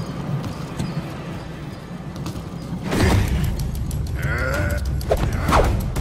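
Steady low rumble of baggage conveyor machinery, then from about halfway a scuffle: several sharp thumps and short strained cries of effort.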